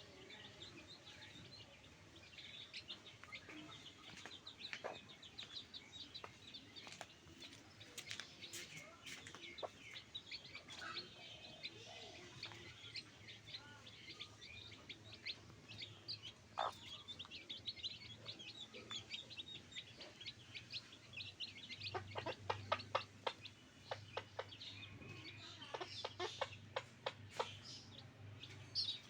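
Backyard chickens clucking, with many short high chirps. A quick series of sharp taps comes in the second half.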